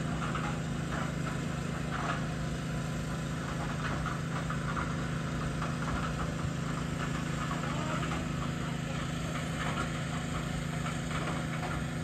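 Small engine running steadily at constant speed, a low even drone, with faint scattered clinks of work over it.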